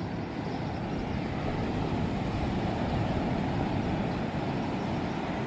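Steady low rush of ocean surf breaking on a beach.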